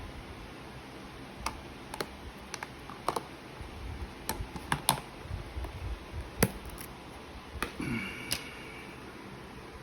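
Handling noises from a tarantula enclosure being worked: a dozen or so scattered light clicks and taps, irregularly spaced, with a brief faint squeak near eight seconds.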